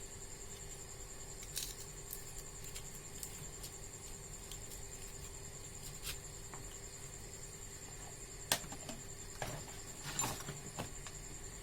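Sparse light clicks and taps of small objects being handled on a workbench, over a faint steady high-pitched whine and a low hum.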